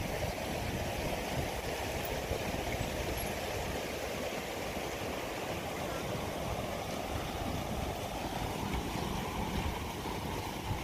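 Kubota M6040SU tractor's diesel engine running steadily at low speed, the tractor standing stuck in mud.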